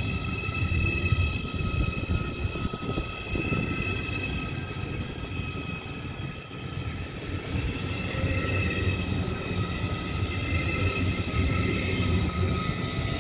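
Deutsche Bahn ICE high-speed train passing slowly at close range: a steady low rumble of the cars rolling by, with a steady high-pitched whine above it.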